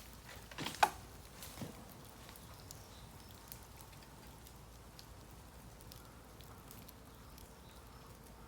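A sharp crack about a second in and a smaller knock soon after, then a bamboo bonfire crackling faintly with scattered small ticks.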